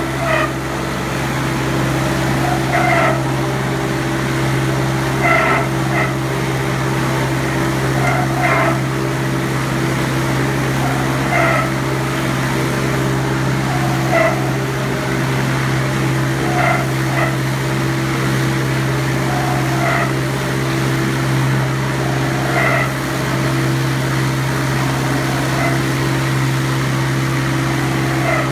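Meat bowl cutter running steadily while chopping liverwurst mass, with a loud, even machine hum. Short high-pitched sounds recur every two to three seconds over the hum.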